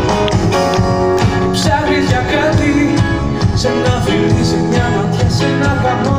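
Live band playing a rock song on stage, with guitar and drums, heard through the hall's PA from the audience seats.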